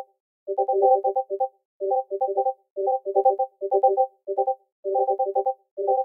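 Discord message notification ping repeated over and over in rapid, overlapping clusters of short electronic chimes, several a second, with a brief gap just after the start.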